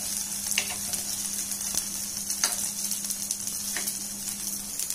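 Sabudana vadas sizzling in a little oil in an uncovered appe pan, a steady frying hiss, with a few light clicks of a metal spoon turning them in their cups.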